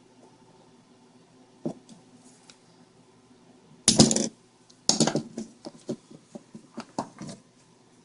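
A small metal hand tool scraping and clicking against a laptop motherboard while solder is cleaned from between tiny pads: one loud scrape about halfway through, then a quick run of short clicks and scratches.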